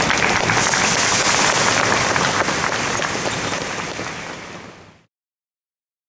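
Crowd applauding: a dense patter of many hands clapping that fades away and cuts off about five seconds in.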